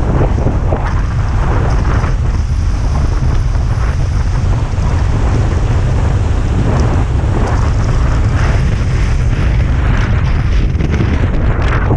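Heavy wind buffeting the microphone, over water splashing as a 1995 Peugeot 205 drives through a flooded road.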